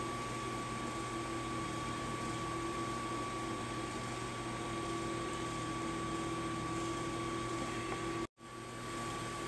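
Portable band sawmill running steadily, a constant mechanical hum with a fixed whine. The sound cuts out for an instant about eight seconds in, then resumes.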